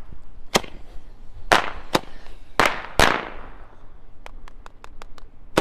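Fireworks going off: six sharp bangs at irregular gaps of about half a second to a second, each with a short fading tail. Near the end comes a quick string of small, faint pops, followed by one more bang.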